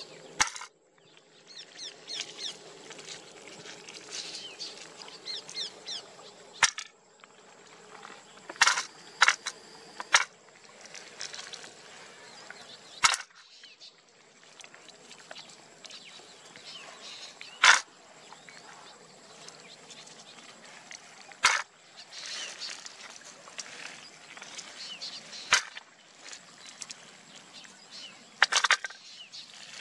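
Stones dropped one at a time into a hard plastic toy trailer, each landing as a sharp clack, about ten spaced a few seconds apart. Birds chirp underneath.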